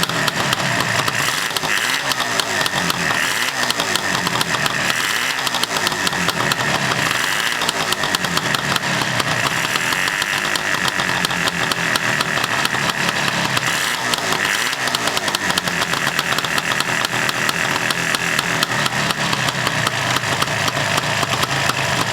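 Suzuki GT250's air-cooled two-stroke twin engine running just after being kick-started, its first run in about ten years, with the revs rising and falling again and again.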